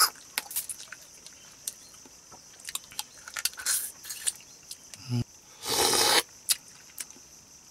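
Mud crab being eaten by hand: sharp clicks of biting and cracking the cooked shell, and a loud slurp about six seconds in as the meat and juice are sucked from a shell piece.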